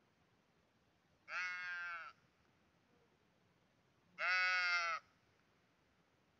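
Sheep bleating twice: two wavering calls, each just under a second long and about three seconds apart, the second louder.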